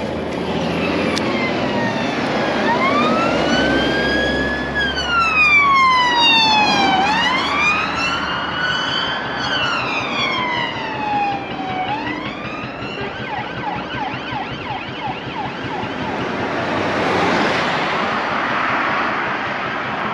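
UK police car siren: slow rising and falling wails broken by quick yelp passages, switching to a rapid pulsing about thirteen seconds in and then stopping. After that, the road noise of vehicles passing close swells and fades a few seconds before the end.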